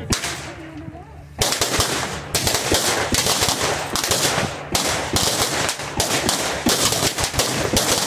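Rapid volley of blank gunfire from revolvers and long guns, many shots close together and overlapping, breaking out about a second and a half in and keeping on.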